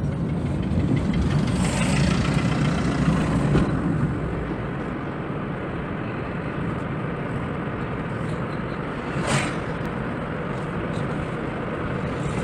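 Car driving on the road heard from inside the cabin: steady engine and tyre noise, a little louder in the first few seconds, with one sharp click about nine seconds in.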